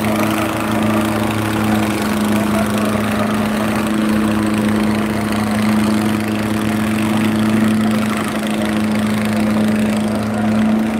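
Diesel tractor engines running flat out under heavy load as two tractors chained back to back pull against each other, a steady, unbroken drone.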